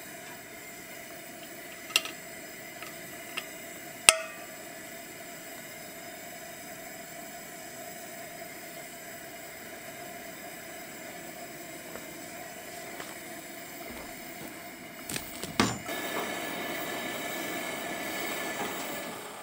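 Camp stove burner hissing steadily under a stainless pot, with a few light metal clinks in the first few seconds. About fifteen seconds in come a couple of knocks, then the hiss grows louder for a few seconds.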